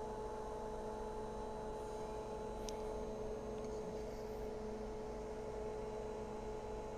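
Steady electrical hum from an amplifier test bench: one steady mid-pitched tone with fainter overtones over a low hum.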